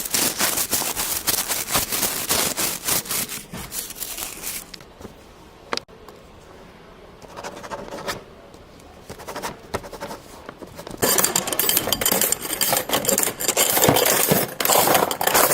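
Foley sound effects of dense rubbing and scraping noise. It runs for about four seconds, then drops to a quieter stretch with a single sharp click, and comes back louder for the last few seconds.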